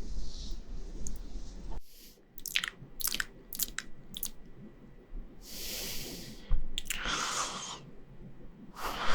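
Close-miked mouth sounds in ASMR style: a quick run of about seven crisp clicks or crunches, then three breathy hissing swells.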